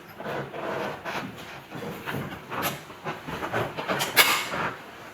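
Chair-assembly hardware being handled and fitted: irregular clicks, scrapes and light knocks of screws and metal parts going into place, with a louder clack and scrape about four seconds in.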